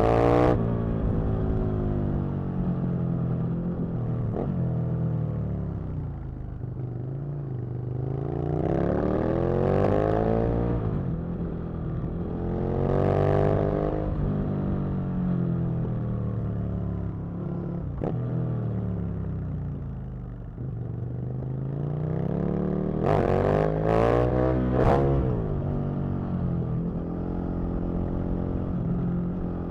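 Aprilia RSV Mille's V-twin engine pulling up through the revs and backing off again several times, with three quick sharp throttle blips about two-thirds of the way in.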